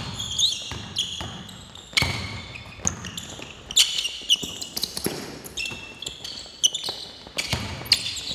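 A basketball bouncing on a hardwood gym floor, with irregular thumps, while sneakers squeak in short, high chirps as players cut and stop.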